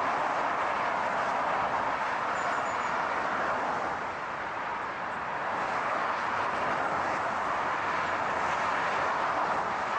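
A car in motion: a steady, even rush of road noise with no distinct engine note, dipping slightly about four seconds in.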